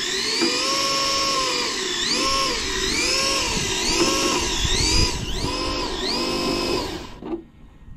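Electric motor and gear drivetrain of a 1/10-scale RC drag car whining as it spins the tyres on a carpet mat to warm them up. The pitch climbs, holds, then dips and climbs again several times, about once a second, as the throttle is eased and reapplied, and it cuts off about seven seconds in.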